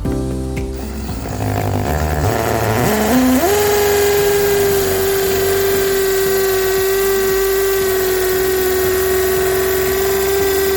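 DeWalt DCD709 compact cordless hammer drill running at high speed (gear 2) in hammer mode, boring into brick. Its motor whine rises in pitch over the first few seconds, then holds steady and loud.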